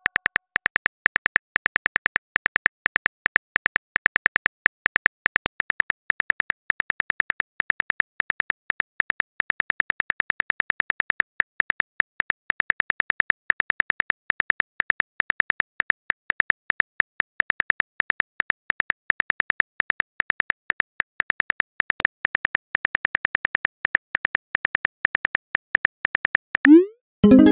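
Phone keyboard typing clicks from a texting app, a rapid, even run of short taps, several a second, as a message is typed out letter by letter. Near the end the clicks stop and a short rising swoosh follows as the message is sent.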